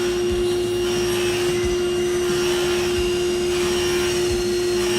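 A machine's electric motor running steadily, a drone with a constant humming tone and no change in speed.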